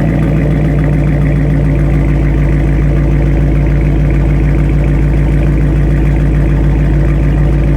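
2017 Dodge Charger Daytona's 5.7-litre Hemi V8 idling steadily through its exhaust, with a deep, even rumble.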